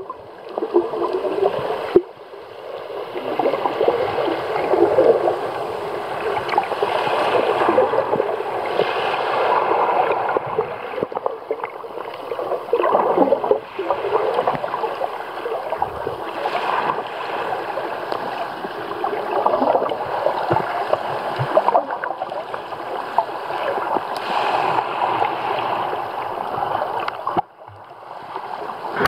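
Muffled rushing and gurgling of shallow sea water heard from a camera held underwater, swelling and fading irregularly.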